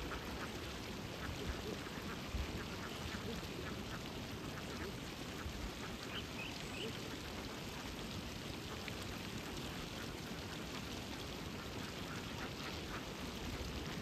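A flock of waterbirds calling: many short calls repeated a few times a second over a steady outdoor hiss, with a few higher chirps about six seconds in.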